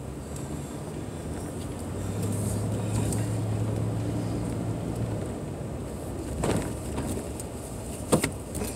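Car driving along a paved road: steady engine and road rumble, with a low hum that swells for a few seconds in the middle. A few short knocks come near the end.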